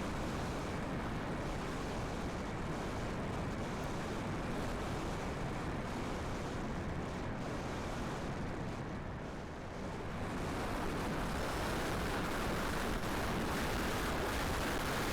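Strong gusty wind buffeting the microphone: a steady rushing rumble that eases for a moment about nine seconds in, then picks up again, brighter.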